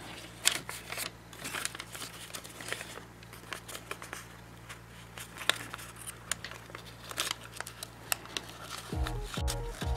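Kraft origami paper being folded and pressed down by hand, with scattered crinkles and rustles. Background music comes back near the end.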